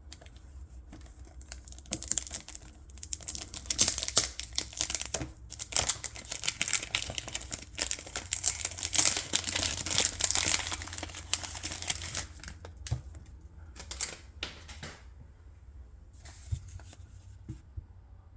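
Cellophane wrapping on a fragrance box crinkling and tearing as it is pulled off, a dense run of crackling for about ten seconds, then a few separate taps and clicks of the box being handled.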